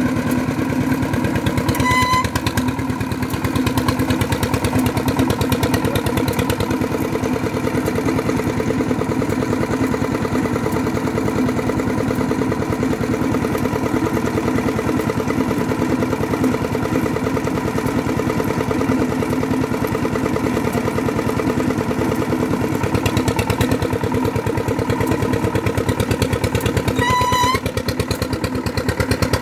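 Bored pile drilling rig's engine running steadily, with two short high-pitched tones, one about two seconds in and one near the end.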